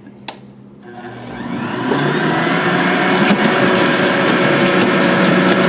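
Breville Juice Fountain Multi-Speed juicer switched on with a click, its motor spinning up over about a second and a half and then running at a loud, steady whine on speed setting four.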